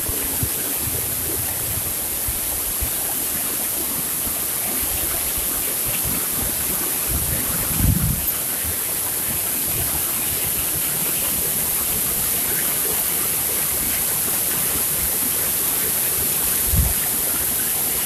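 Waterfall pouring down a rock face into a pool: a steady, even rush of falling water. A couple of brief low thumps about eight seconds in and near the end.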